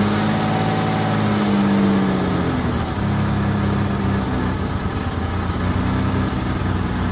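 Car engine idling rough while brake cleaner is sprayed around the intake: the idle speed rises for about two seconds and then drops back, a change that reveals a vacuum leak in the intake area. Short hisses of the aerosol spray come three times.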